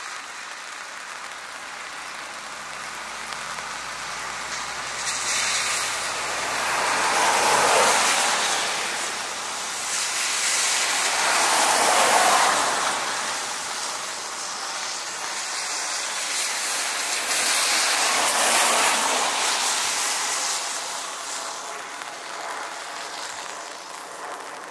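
Dassault/Dornier Alpha Jets' twin turbofans running as the jets roll along a wet runway. Their rushing roar swells and fades three times as they pass, loudest near the middle and again about three-quarters of the way through.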